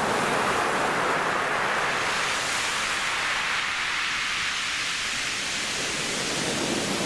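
Steady rush of rough sea surf, growing hissier through the middle and then easing back.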